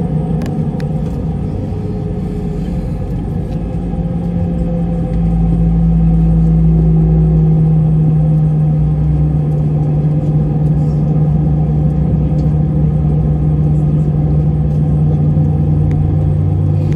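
Airliner cabin noise while taxiing: a steady jet-engine drone over a low rumble, stepping up in loudness about five seconds in and then holding.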